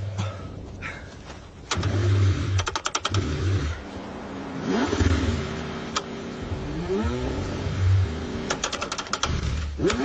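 Car engine cranking on a cold start, with a whine that rises and falls and the engine firing in short, uneven surges, punctuated twice by quick runs of clicks.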